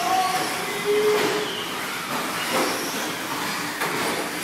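Several radio-controlled 2wd short course trucks racing on a dirt track: a steady hiss of motors, gears and tyres, with brief whines that rise and fall as the trucks speed up and slow down.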